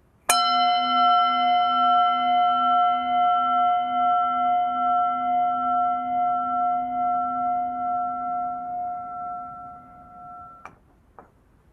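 A bell struck once, ringing with several clear tones and a slowly wavering low note, fading for about ten seconds before it is stopped with a light click. It is rung to mark the chalice lighting.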